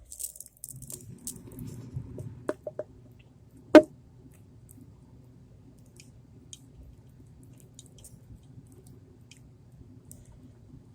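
A thick liquid squelching as it is poured from a bottle into a cup, with a few small clicks and one sharp knock about four seconds in.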